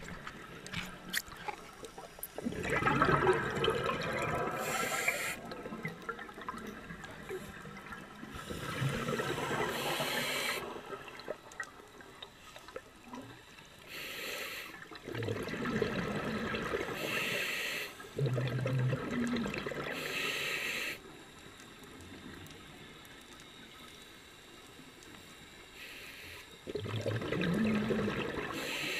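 Scuba diver breathing through a regulator underwater: short hissing inhalations alternate with gurgling rushes of exhaled bubbles every few seconds, with a quieter pause a little after the middle.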